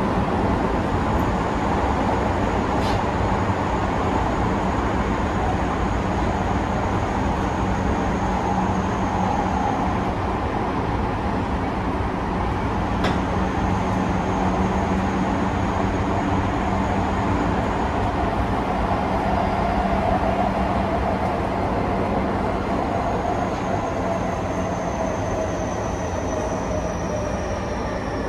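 Tobu 50000-series electric train running through a tunnel, heard from inside the passenger car: a steady rumble of wheels on rail with a constant hum. A faint high whine comes and goes and slowly falls in pitch over the last few seconds, and two faint clicks come about 3 and 13 seconds in.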